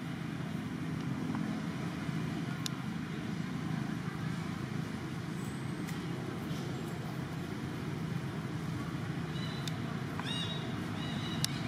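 A steady low background rumble, with a baby macaque's high, thin squeals starting about nine and a half seconds in.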